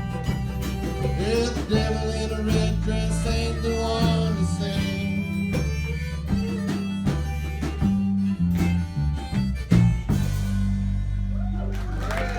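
Country-style song in an instrumental passage: plucked strings over a steady, stepping bass line, with a lead melody on top.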